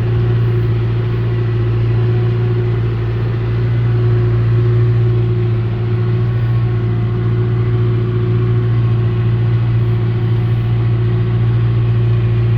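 Farm tractor's diesel engine running steadily under load while driving, a deep even drone.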